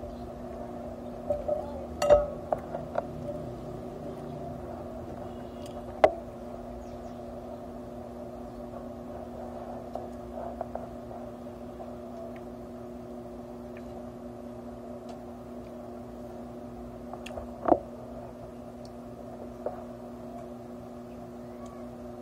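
Steady low hum throughout, with a few sharp clicks and knocks from eating at the table, the loudest about two seconds in, about six seconds in and near the end.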